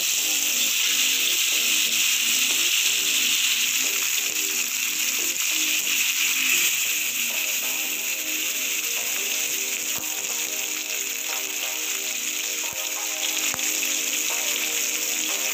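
Hot oil sizzling steadily as masala-marinated sankara (red snapper) fish shallow-fry on a flat griddle, with faint background music underneath.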